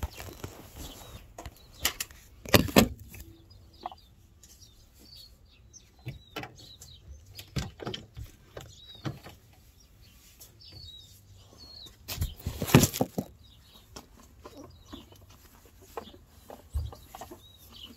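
Scattered short bird chirps, with two loud rustling bursts of handling noise on the phone's microphone, about three seconds in and again near thirteen seconds.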